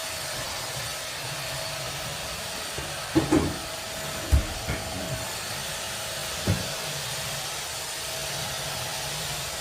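Vacuum cleaner running steadily with a faint even whine, and several knocks and bumps against it, loudest about three to four and a half seconds in.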